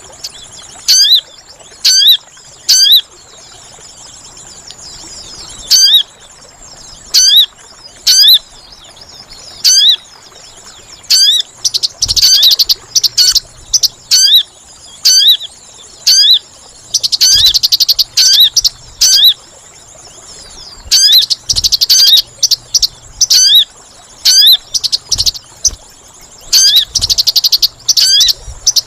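Sogon bird lure call: short, sharp hooked chip notes repeated about once a second, broken four times by loud bursts of rapid chattering. A faint steady high-pitched tone runs underneath.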